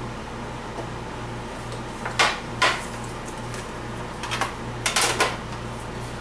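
DVD cases and metal collector tins handled and set down: two sharp clacks about two seconds in, then a quicker cluster of clicks and knocks nearer the end, over a steady low hum.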